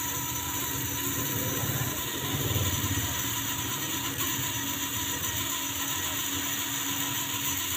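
Small 12-volt brushed DC motor running steadily, a continuous whirring hum with steady high-pitched tones. One of its carbon brushes has been replaced with a homemade thin metal strip.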